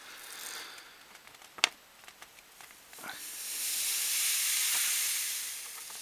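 Fine magnetite powder sliding off a sheet of paper into a glass jar, making a high hiss that swells and fades over the last few seconds. A single sharp tap comes about one and a half seconds in.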